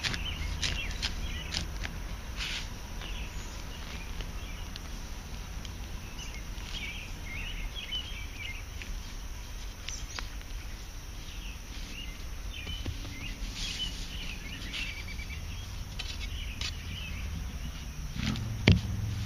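Curved digging knife cutting and prying a plug of sod and soil from a lawn, with scattered crunching clicks as the blade works the dirt. Small chirps in the background and a low steady rumble run under it, and one sharp knock comes near the end.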